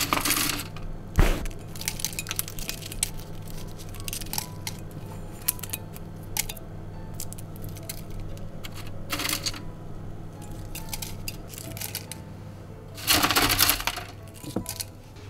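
Dried velvet shank mushrooms (Flammulina velutipes) crackling and rustling as fingers stir them inside a glass jar: many small dry clicks, with louder crackling handfuls at the start, about nine seconds in and near the end.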